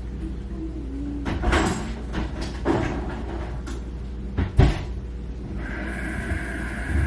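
Kitchen handling sounds: a few knocks and clunks, like cupboard doors or containers being moved, the loudest about four and a half seconds in, over a steady low hum. About five and a half seconds in, a steady hiss starts and keeps going.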